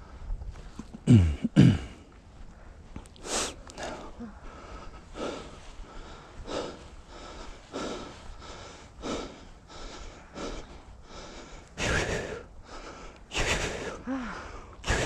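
Hard, rhythmic breathing of a hiker climbing a steep slope, a breath roughly every second, out of breath from the effort. Two loud low thumps about a second in.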